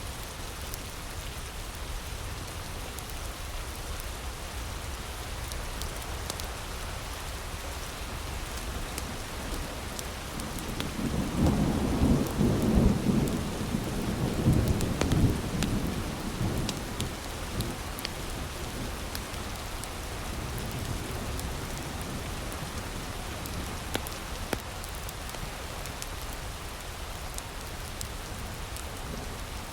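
Steady heavy rain with scattered faint crackles, and a low roll of thunder that swells about eleven seconds in and dies away over several seconds.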